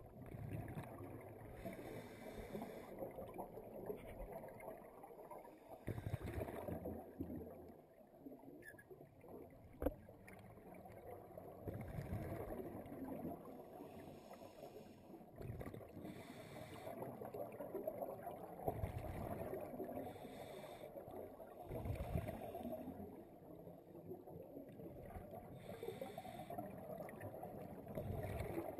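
Scuba regulator exhaust bubbles heard underwater, a rushing bubbling burst every five seconds or so with each exhalation, over a steady muffled underwater rumble. A single sharp click comes about ten seconds in.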